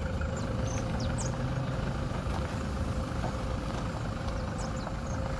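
A motor vehicle running steadily: an even low rumble with a constant hum over it, and a few faint high chirps now and then.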